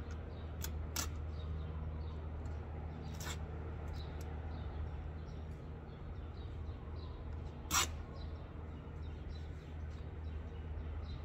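Scattered small clicks and rustles of hand work on the worn underside of an antique upholstered settee frame, with one sharp click nearly eight seconds in, over a steady low hum.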